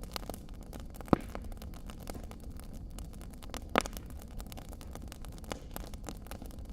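Wood fire crackling in a stone fireplace: a steady low rumble of burning with many small quick crackles, and two louder pops, about a second in and a little before the four-second mark.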